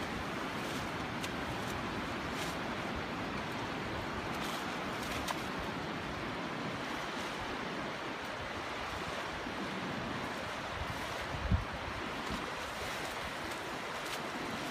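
North Sea surf washing steadily over the shallow beach, with wind on the microphone. A brief low thump comes about eleven seconds in.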